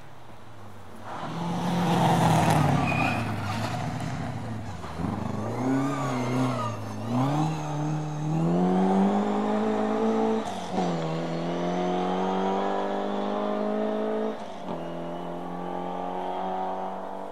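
Rally car engine working through a chicane double turn. The engine note dips and wavers as the car slows and changes direction, then climbs hard as it pulls away, falling sharply twice at upshifts.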